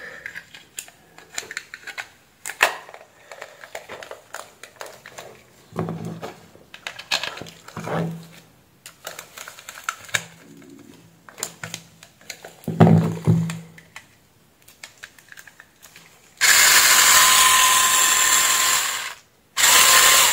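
Plastic epilator housing being handled and pressed together, with scattered clicks and knocks, and a small screw being driven in with a hand screwdriver. Near the end a loud, steady whirring noise runs for about two and a half seconds, stops, and comes back briefly.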